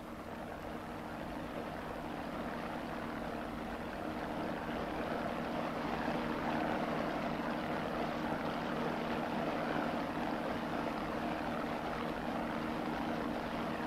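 Steady engine drone of a sightseeing boat under way, with a wash of noise over it. It slowly grows louder through the first several seconds, then holds.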